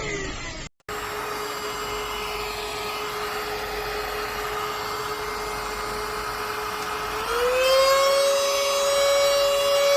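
JAMAY mini cordless handheld vacuum cleaner's motor running with a steady whine and hiss of air. About seven seconds in its pitch rises and it gets louder. Right at the start a whine falls in pitch, then there is a brief break.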